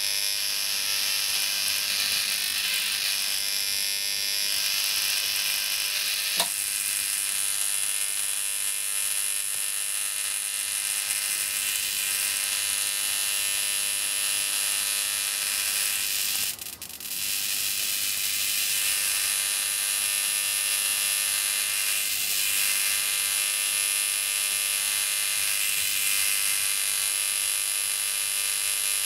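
High-voltage discharge arcing through magnesium shavings: a steady high-pitched buzzing hiss, with one sharp crack about six seconds in and a short dip in level a little past halfway.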